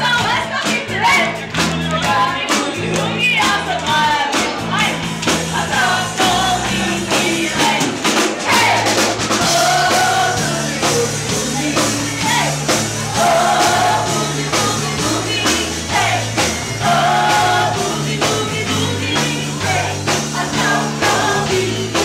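Live band playing a boogie-woogie: a bass line stepping from note to note under drums, with singing over the top.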